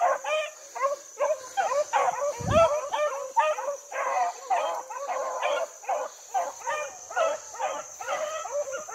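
A pack of rabbit hounds baying on a track, many overlapping yelping cries several a second: the hounds are running a rabbit. A single dull bump about two and a half seconds in.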